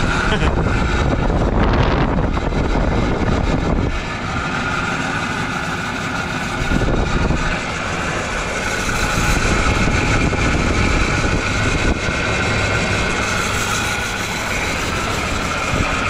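Hampton Bay HBT120A 12,000 BTU window air conditioner running under test, its Sanyo rotary compressor and GE fan motor giving a steady hum and whir with a high whine over it. The fan motor's bearings are worn out.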